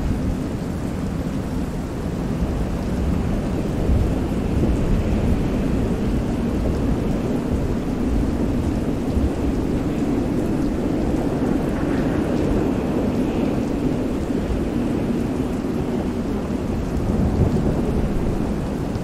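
Mixed stormy sea soundscape: steady heavy rain over a deep, continuous rumble of thunder, wind and waves.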